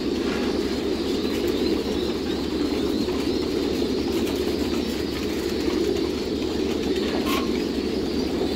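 Many caged domestic pigeons cooing together in a dense, steady chorus, with one short clatter about seven seconds in.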